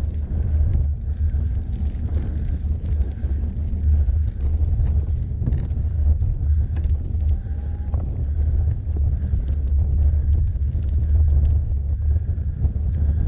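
Heavy wind rumble on the camera's microphone while riding an e-bike over a gravel track, with tyre noise from the gravel and scattered small clicks and rattles from the bike.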